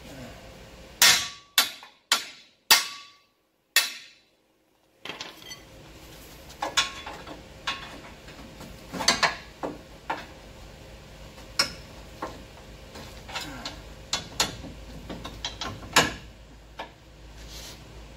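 Hammer blows on steel at a truck's rusted torsion bar mount. Five loud, ringing strikes come in quick succession in the first few seconds, followed by a run of lighter metallic knocks and clinks.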